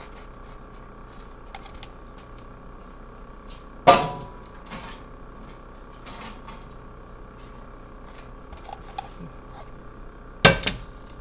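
Kitchen handling noises: a sharp knock with a brief ring about four seconds in, a few lighter taps, then a metal frying pan clattering on a glass-top electric stove near the end, over a faint steady hum.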